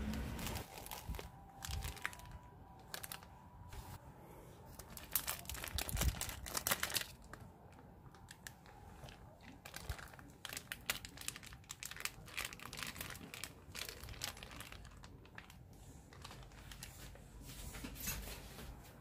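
Plastic bag of kimchi crinkling and crackling as it is handled, snipped open with scissors and emptied into a plastic tub. The crackles and snaps are loudest and densest about five to seven seconds in.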